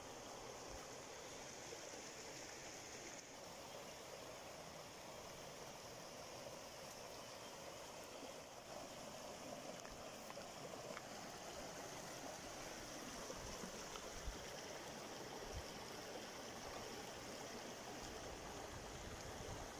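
Shallow mountain stream running over rocks and pebbles, a steady rushing of water.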